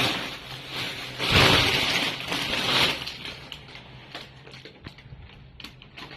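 Plastic packaging rustling and crinkling as it is handled, loudest between about one and three seconds in, then thinning to scattered crackles.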